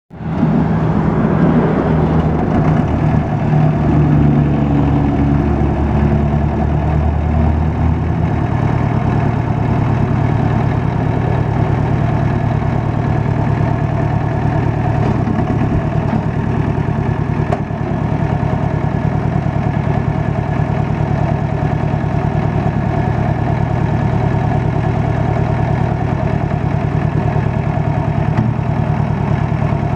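Farm Pro 2420 compact tractor's diesel engine running near idle. For the first several seconds, while the front loader bucket is raised, the engine note is heavier and deeper, then it settles to a steady idle.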